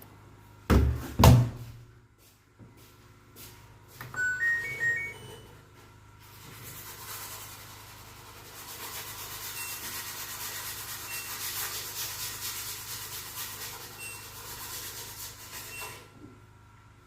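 A washing machine being operated: two heavy thumps about a second in, then a short run of beeps stepping up in pitch from its control panel, followed by a steady rushing hiss that runs for about ten seconds and stops near the end.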